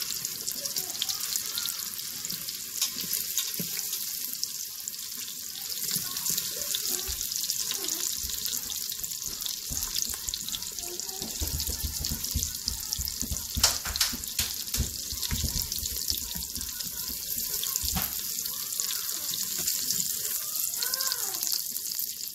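Meatballs sizzling as they brown in an Instant Pot's stainless inner pot on the sauté setting: a steady crackling hiss throughout. A single sharp knock about fourteen seconds in, with a few dull thumps around it.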